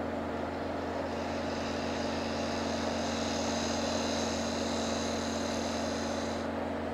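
Wood lathe motor running with a steady hum while a pointed turning tool takes a light cleanup cut on a spinning wooden knob. A thin, high cutting hiss joins in about a second and a half in and stops shortly before the end.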